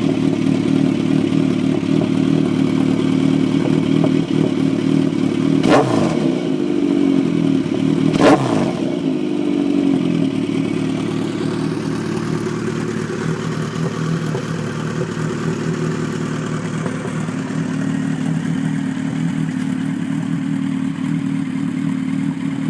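Suzuki GSX1400's inline-four engine idling steadily through an aftermarket carbon-titanium silencer, with two quick sharp blips of the throttle about six and eight seconds in.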